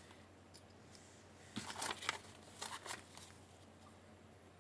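Faint handling noise: two short runs of rustles and small clicks, about two and three seconds in, as small items are picked up and moved.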